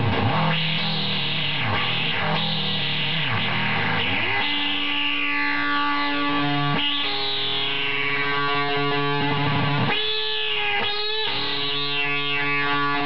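Electric guitar played through a SubDecay Noise Box effects pedal, distorted and warped. The tone sweeps and wobbles at first, then from about four seconds in settles into long sustained notes with sweeping overtones.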